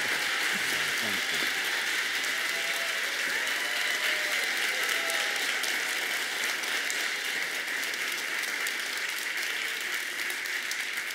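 Church congregation applauding a guest speaker's welcome, a dense steady clapping with voices calling out over it in the first few seconds, easing slightly near the end.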